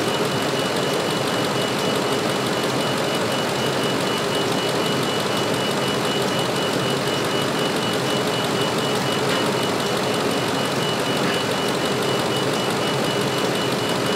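2006 Ford F350's engine idling steadily, with a thin, steady high-pitched tone running over it.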